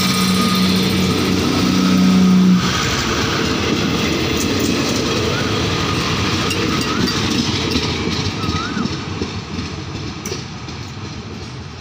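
Daewoo diesel multiple-unit train pulling out past the platform: a steady engine drone from the passing car stops abruptly about two and a half seconds in, leaving the rumble and clatter of wheels on the rails, which fades as the train moves away.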